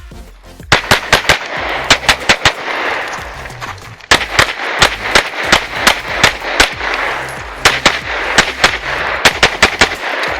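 Rapid pistol fire from a 2011-style pistol in 9mm major: dozens of sharp shots, many in quick pairs, starting under a second in, with a short lull around three to four seconds in. Background music plays underneath.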